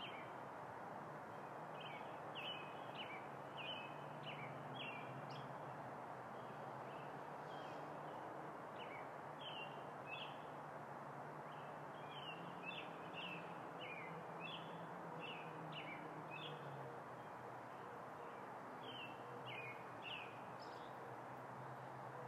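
Faint birds chirping in short, scattered calls over a steady background hiss with a low hum.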